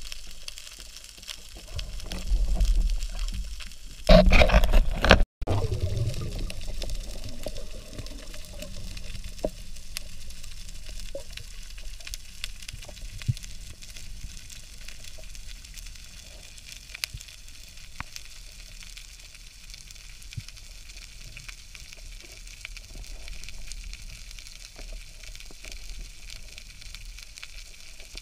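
Underwater ambience picked up by a diver's camera in its housing: a steady crackling hiss with scattered small clicks. About four seconds in, a loud rush of water or bubbles cuts off abruptly.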